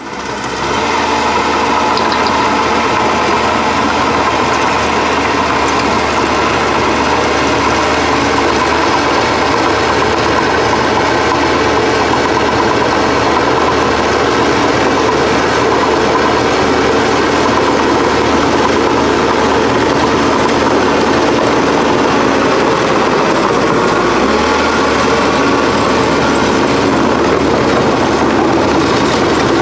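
Small engine of a mini excavator's hydraulic power pack, running steadily while the digging arm is worked.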